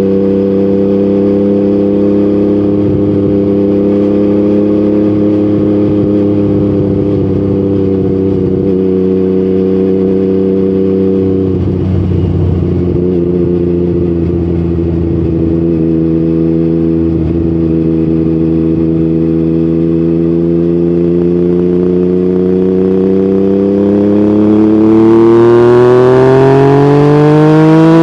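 Yamaha MT-09's inline three-cylinder engine through an Akrapovic aftermarket exhaust, running at a steady engine speed for most of the time, then accelerating with its pitch climbing steadily and getting louder over the last few seconds.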